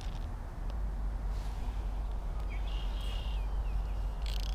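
Wind buffeting the microphone as a steady low rumble, with a brief high chirp about three seconds in and a short rustle near the end.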